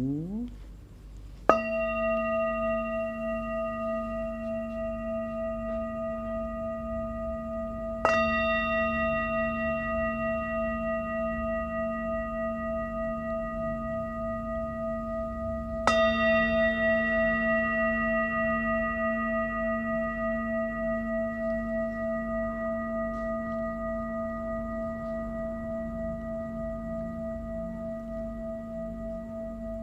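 A singing bowl struck three times, about six to eight seconds apart, each strike ringing on with a deep hum and several higher overtones and fading slowly, with a gentle pulsing wobble as it rings.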